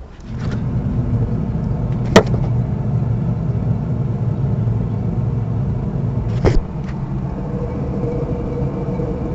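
Worn rear wheel hub bearing of an Audi 80 B3 humming steadily as the free-hanging rear wheel is spun by hand. The low hum is the sign that the bearing has failed and needs replacing. Two sharp knocks cut through it, about two seconds in and again near six and a half seconds.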